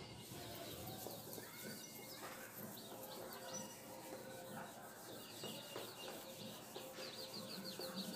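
Birds chirping faintly, with two quick runs of rapidly repeated high chirps in the second half.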